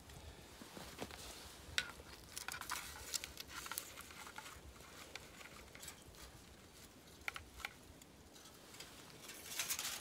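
Faint, scattered light clicks and scrapes of a metal utensil against a plate and grill as grilled steak is lifted off a campfire, amid low campfire crackle. A short rush of hissing noise comes near the end.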